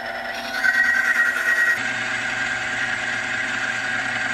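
Electric motor of a bench friction-testing machine running steadily, spinning a steel wheel against a weighted metal test cylinder lubricated with chain lube during a wear test: a steady motor hum with a rubbing hiss from the loaded contact, shifting slightly in tone about two seconds in.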